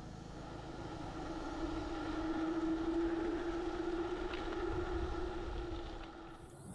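Road noise with a steady motor hum that swells for a few seconds and then fades.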